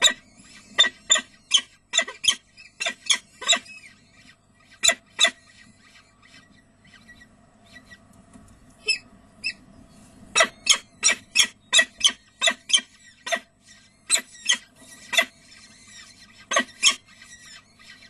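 Peregrine falcons calling at the nest during a feeding of the downy chicks: short, sharp calls about three a second, in several bursts with pauses between them.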